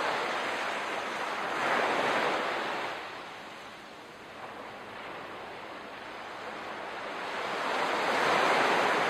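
Sea waves washing in, a rushing hiss that swells about two seconds in, falls away, then swells again near the end.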